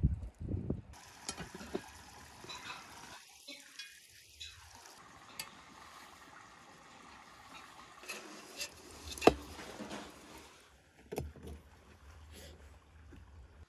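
Metal clanks and knocks of a cast-iron cauldron being handled by its wire handle and hook over a tandoor, with the sharpest knock about nine seconds in. A steady hiss runs underneath.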